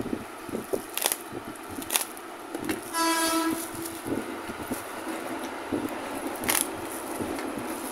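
Black plastic bubble-wrap packaging being handled and cut with a snap-off box cutter: crinkling with small knocks and a few sharp clicks. About three seconds in, a short horn-like tone sounds for about half a second.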